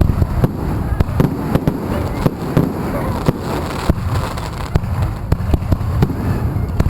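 Fireworks going off in rapid, irregular succession: many sharp pops and bangs a second over a continuous low rumble of bursts.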